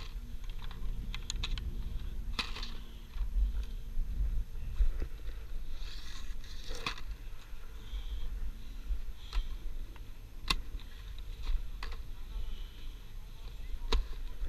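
Skis and poles being handled on packed snow: skis set down, ski boots clicking into bindings and poles knocking, heard as sharp scattered clicks over a low steady rumble.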